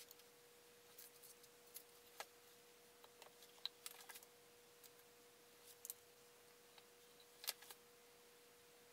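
Near silence: faint, irregular clicks and taps from handling a plastic glue bottle and wooden plywood rings while wood glue is applied, over a faint steady hum.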